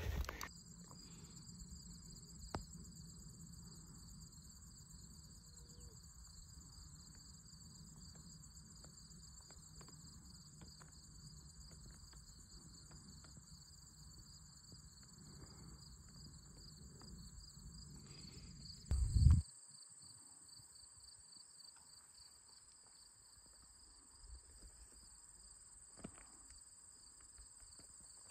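A steady chorus of insects chirring in two high, finely pulsing bands. A low rumble sits underneath, and about two-thirds of the way in a brief loud low bump cuts it off.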